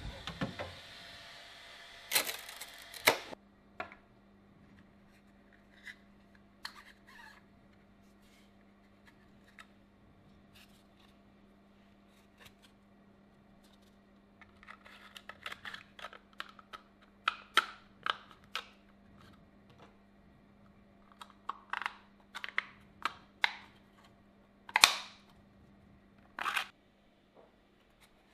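Small hard-plastic 3D-printed parts handled and fitted together by hand: scattered clicks, taps and clacks of plastic, coming in clusters, with the sharpest clack near the end. A noisy rustle with two louder clacks comes in the first few seconds, and a faint steady hum runs underneath from about four seconds in.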